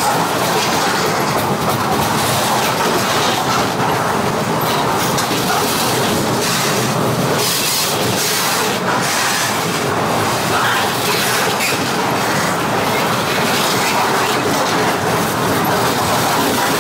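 Railroad cars rolling past on the track, their wheels clicking steadily over the rail joints.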